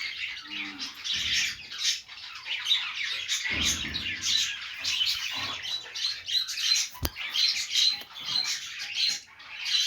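Pet budgerigars chattering and chirping without a break, many high calls overlapping. There is a low rumble at about three and a half seconds and a single sharp click about seven seconds in.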